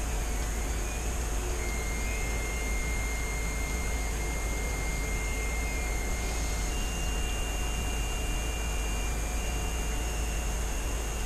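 Steady low hum and hiss of background machinery, with faint thin whistling tones that come and go, each held for a few seconds.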